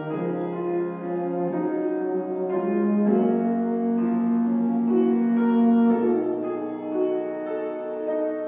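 A valved brass instrument, held upright with its bell up, playing a solo melody in sustained notes with piano accompaniment; one note is held for about three seconds in the middle.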